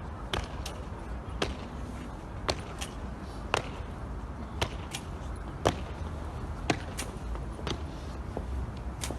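Hard heels striking stone paving in a slow, even rhythm, the strikes often coming in close pairs about once a second, over a low steady outdoor rumble.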